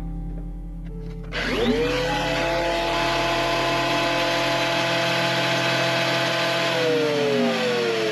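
A Triton TPT125 planer thicknesser starts about a second in, its motor whine rising quickly as it spins up, then running steadily as a log is fed toward the cutter block. Near the end its whine drops in pitch.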